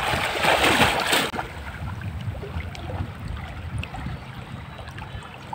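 River water splashing and sloshing, loudest for about the first second, then settling into a softer, steady wash of moving water.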